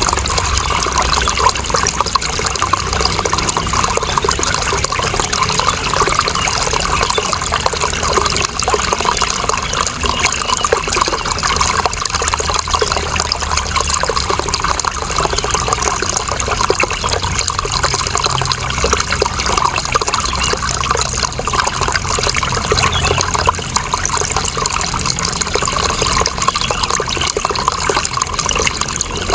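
Running water, flowing and splashing steadily without a break.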